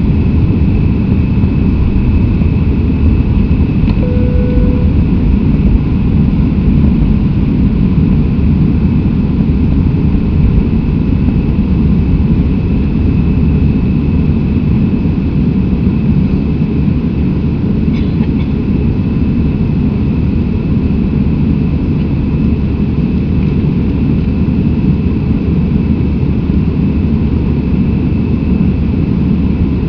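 Airbus A319 airliner's jet engines running at high power, heard from inside the cabin during takeoff: a loud, steady deep rumble with a steady high whine over it.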